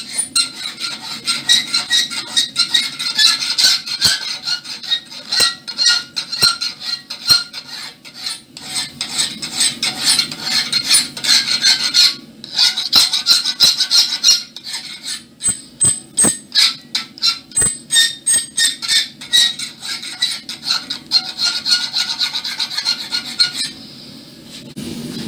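Round hand file rasping back and forth across the notched edge of a wrought-iron piece clamped in a bench vise, at about two strokes a second. There is a brief pause about halfway through, and the filing stops shortly before the end.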